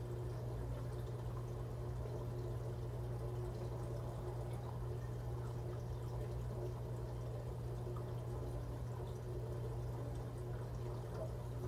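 Reef aquarium running: water trickling and pouring under a steady low hum.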